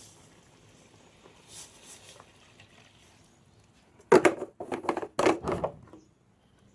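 Faint for a few seconds, then about four seconds in a quick run of loud scrapes and clatters, lasting under two seconds, as a spatula stirs the coconut milk, curry paste and added water in the wok.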